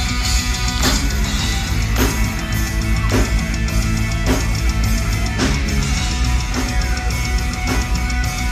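Metal band playing live, heard from the crowd: electric guitar lead over heavy distorted guitars, bass and drums, with a strong drum accent about once a second.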